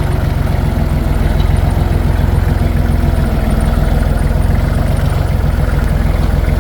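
Tractor engine running steadily as it hauls a load, an even low drone.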